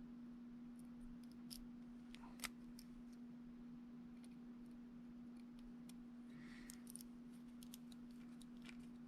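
Near silence over a steady low hum, with faint scattered clicks and ticks of small tools and tiny parts being handled during a drone camera gimbal repair; the sharpest click comes about two and a half seconds in.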